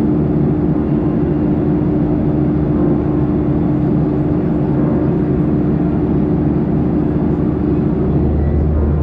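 Steady in-flight cabin noise of a Boeing 737-800 on descent: a rush of airflow and engine noise with a steady hum, and a deeper rumble joining near the end.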